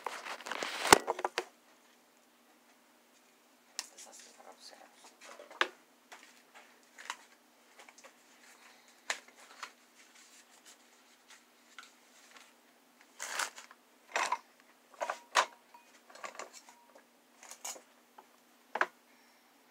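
Handling noise of a phone being moved and covered: a loud burst of rubbing and knocks in the first second and a half, then, after a couple of seconds of silence, scattered rustles, scrapes and clicks.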